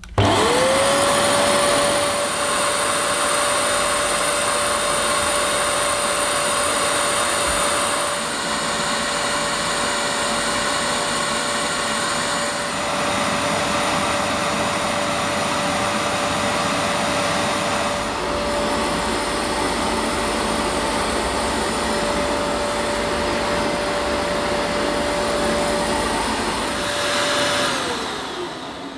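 Vax Platinum Power Max carpet washer switched on with its pre-treatment wand fitted. The motor spins up to a steady high whine and runs with small changes in its sound every few seconds, then winds down after being switched off near the end.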